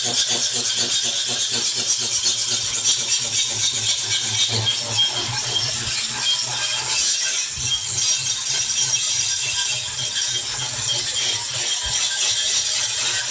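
Handheld electric angle grinder grinding the steel of a used drum-brake shoe, throwing sparks: a steady, high-pitched grinding hiss. The shoe is being ground down to bare metal before new lining is fitted.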